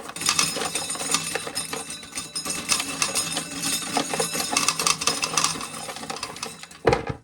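Dried corn being shelled off the cob, the kernels clattering and rattling steadily into a container. A louder clatter comes near the end, then the rattling stops.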